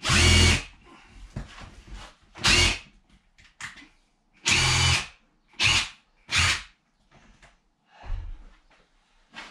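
Cordless drill driving screws into the timber door post to fix a hinge: about seven short bursts of the motor, each under a second, with brief pauses between.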